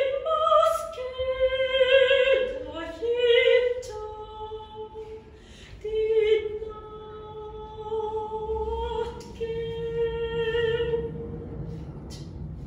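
A solo soprano singing unaccompanied: long held notes joined by steps and slides in pitch, dying away shortly before the end.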